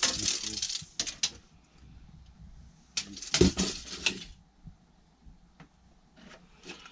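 Plywood cupboard panels being handled: wood rubbing and scraping in three short bouts, with a dull knock about three and a half seconds in.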